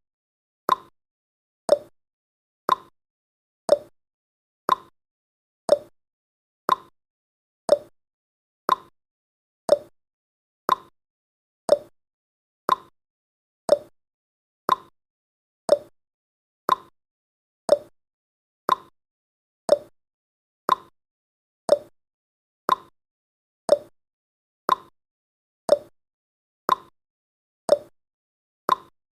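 Countdown timer tick sound effect: short, sharp clock ticks exactly once a second, alternating between a higher and a lower tick like a tick-tock.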